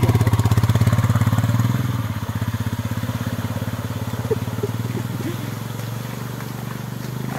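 A small motorcycle engine runs as the bike rides off through floodwater covering the road, its wheels swishing through the water. It is loudest at first and fades after about two seconds as the bike moves away.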